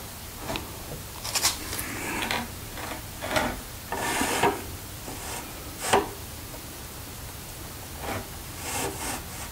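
Wooden boards being handled and shifted against a lumber frame: scattered short scrapes and light knocks of wood on wood, about seven of them, with no power tool running.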